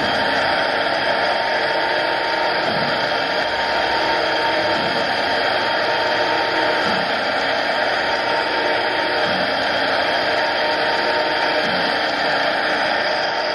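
1984 Reform Type 6 (AR102) knife grinder running: a steady machine whir and noise with a faint hum and a few thin steady tones.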